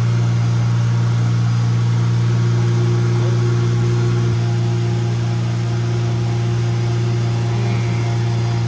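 Ford Ranger pickup engine idling steadily, a low, even drone, running on peanut oil in place of engine oil and a quart low.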